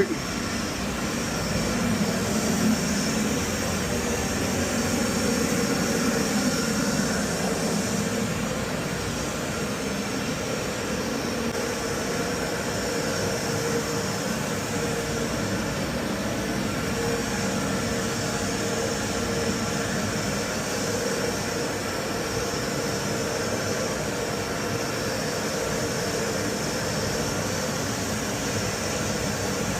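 Commercial boiler's burner and combustion-air blower running with a steady, loud rush and a constant hum. The boiler is going through its restart sequence after a flame-failure reset.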